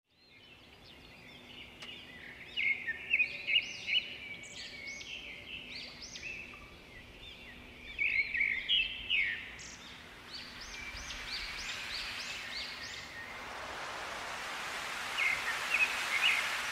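Birds calling in quick runs of short, rising-and-falling chirps, over a faint hiss that grows louder toward the end.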